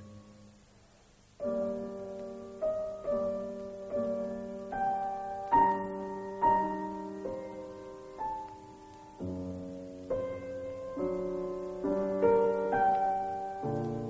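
Slow solo piano music: single notes and chords struck one after another, each ringing and fading away, beginning after a second or so of quiet.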